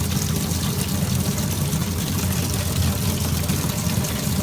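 Navien NPE-240S gas tankless water heater firing as hot water is drawn, a steady low hum from the unit running, with water pouring from a tap into a drain pan.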